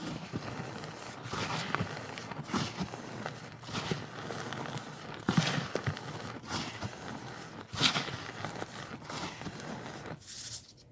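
Hands squeezing and crushing clumps of packed baking soda powder: a soft, continuous crunching and squishing, with several louder crunches a second or two apart.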